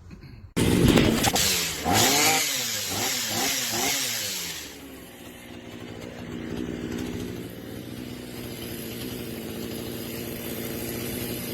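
Small two-stroke petrol engine of a FUXTEC FX-MT152E garden multi-tool running. It comes in loud about half a second in and revs up and down several times, then settles to a steadier, lower running speed.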